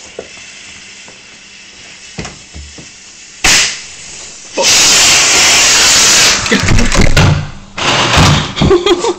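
Firework going off: a sudden loud crack about three and a half seconds in, then a very loud, steady hiss for about two seconds, followed by further loud irregular bursts.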